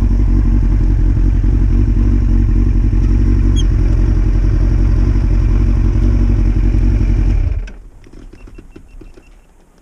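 Yamaha FZS1000's inline-four engine idling steadily with the bike at a standstill, then switched off about three-quarters of the way in: the running stops abruptly, leaving only faint clicks and rustles.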